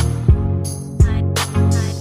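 Background music with a beat and deep bass drum hits.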